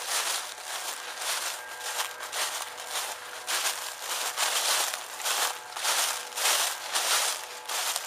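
Footsteps walking steadily through a thick layer of dry fallen leaves, each step a crunching rustle, a little under two steps a second.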